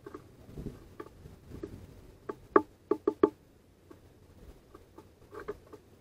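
Great tit pecking at seeds on a wooden feeder tray: light taps, then a quick run of about four sharp wooden knocks a little past halfway, then a few lighter taps near the end.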